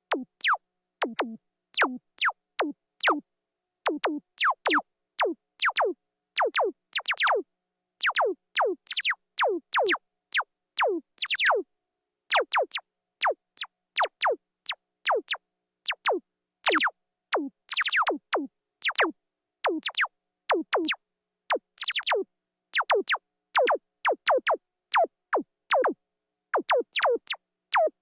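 Synthesized sci-fi laser-gun shots: short zaps that each drop fast from a very high pitch to a low one, fired in quick volleys of several shots with brief silences between.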